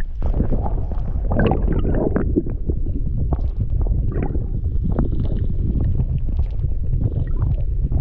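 Sea water heard from an underwater camera: a steady low, muffled rumble with frequent crackles and clicks.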